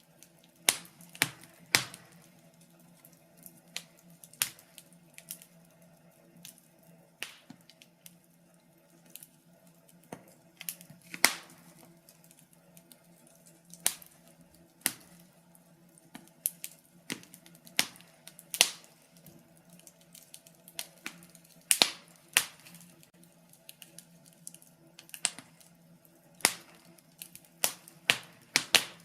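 Wood fire crackling in a fireplace, with irregular sharp pops and snaps of burning logs over a faint steady low hum.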